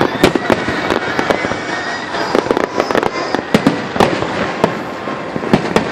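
Fireworks display: aerial shells bursting in rapid, irregular bangs, many a second, over a continuous crackle.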